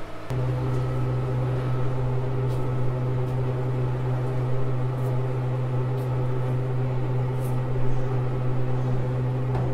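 A steady low hum at a single pitch with overtones above it, starting abruptly just after the start and holding level throughout.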